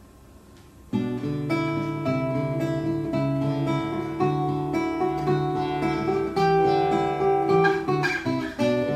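Nylon-string classical guitar played fingerstyle, with picked notes ringing over low bass notes; the playing starts about a second in.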